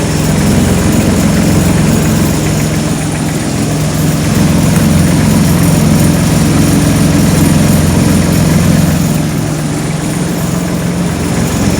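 Kubota D905 three-cylinder diesel engine running steadily, driving the trailer-mounted pressure-washer pump.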